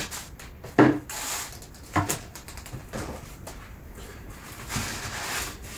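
A chainsaw being turned around and set down on a wooden worktable covered with newspaper and cardboard: two knocks, about one and two seconds in, with paper rustling between them.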